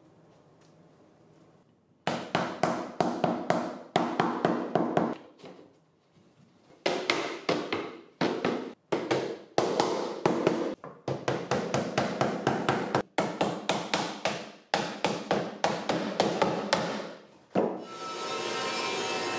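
Rubber mallet rapidly tapping the finger-jointed wooden sides of a glued-up box together, in quick runs of sharp knocks with short pauses between them. Near the end a table saw starts running with a steady whir.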